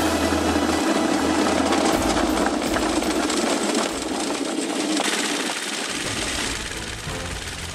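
A railbike's small gasoline engine running as the bike rolls along old rails. The sound is a dense, rapid mechanical rattle that grows quieter near the end.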